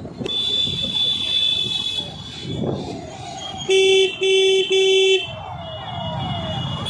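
A vehicle horn honked three times in quick succession, each blast about half a second long and one steady pitch, over motorcycle and street-traffic noise.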